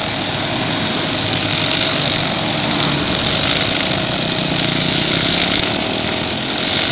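Petrol string trimmer (brush cutter with nylon line) running steadily at high speed, its line hissing as it cuts the grass, with small swells in loudness.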